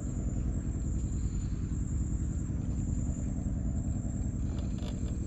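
Small boat engine idling steadily, with a fast, even beat and a low hum.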